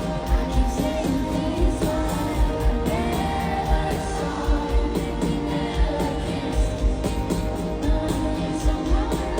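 Live pop song over a stadium PA: a band with a steady kick-drum beat and a sung vocal line.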